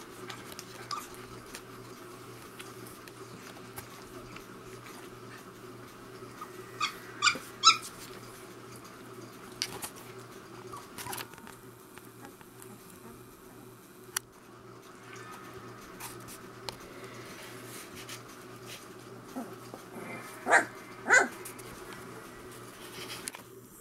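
Three-week-old Saint Bernard puppies giving short high-pitched cries: a quick run of three about a third of the way in and two loud ones near the end, over a steady low hum.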